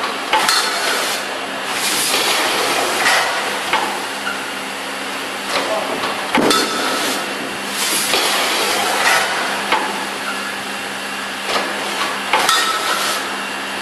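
Vertical form-fill-seal packaging machine running with a steady hum. Every few seconds its pneumatic sealing jaws clack shut and vent short hisses of air as each bag is sealed.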